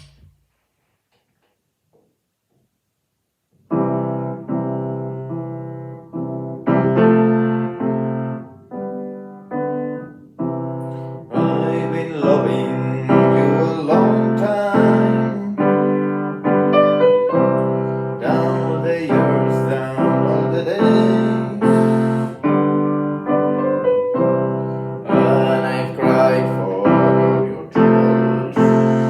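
Piano playing a slow run of chords, each one struck and left to ring out, starting a few seconds in after near silence.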